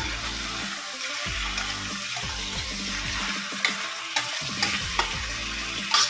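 Chicken pieces frying in oil with a steady sizzle, stirred in the pan, with several sharp knocks of the utensil against the pan in the second half.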